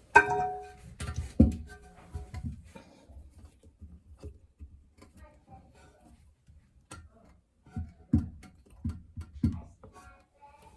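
Hard parts clinking and knocking while a toilet tank is assembled: a sharp clink that rings briefly at the start, then a few scattered knocks, and a quick run of knocks near the end.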